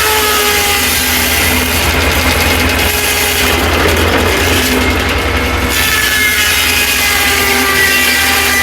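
Corley 395 circular sawmill's blade cutting through a log, a steady whine over a low engine drone, the whine's pitch dipping and coming back up as the blade takes the load.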